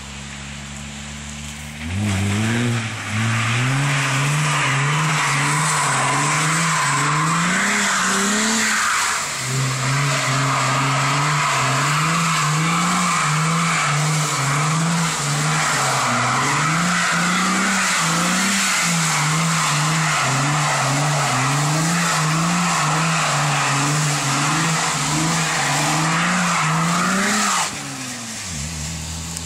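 A car doing a long skid around a roundabout on a wet road, its tyres spinning and squealing. The engine revs rise and fall every second or two, for about 25 seconds. It starts suddenly about two seconds in and stops near the end.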